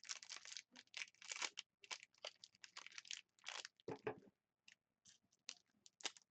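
Faint crinkling and tearing as a sealed trading-card box is opened by hand, in short irregular rustles, with a dull thump about four seconds in.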